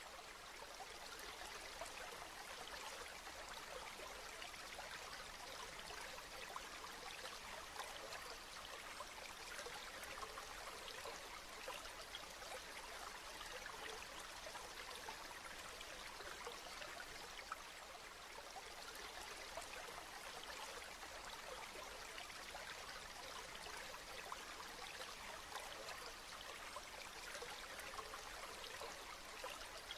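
Steady rainfall: an even hiss of many small drops pattering, with no thunder or other events.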